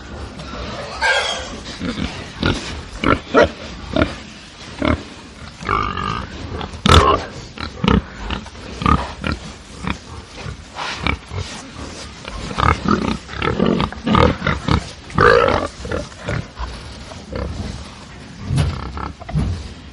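Pigs grunting and squealing, agitated, in many short irregular calls that often overlap, over a steady low background rumble.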